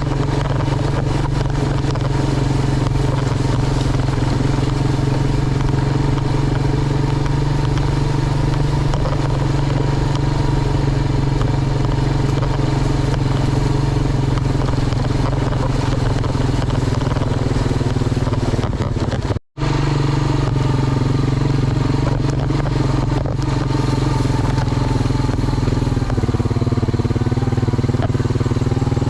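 A vehicle engine running steadily with a constant low drone, broken by a sudden cut to silence for an instant about two-thirds of the way through before the same drone resumes.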